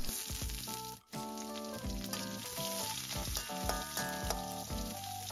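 Shallots, dry red chillies and curry leaves frying in coconut oil in an aluminium wok, sizzling steadily, with a light melody of background music over it. The sound drops out briefly about a second in.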